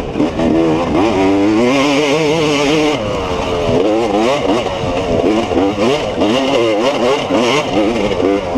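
Off-road dirt bike engine racing hard, its revs rising and falling over and over as the throttle is worked and released.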